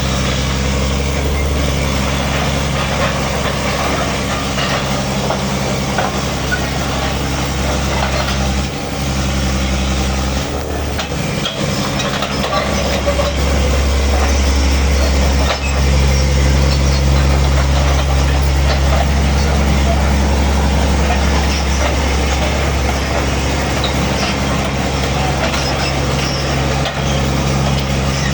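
Backhoe's engine running steadily under work. It eases off briefly about ten seconds in, then runs louder from about fifteen seconds on.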